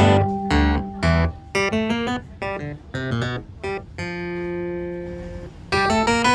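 Instrumental background music of plucked-string notes picking out a melody, with one chord held for about a second and a half past the middle before the picking resumes.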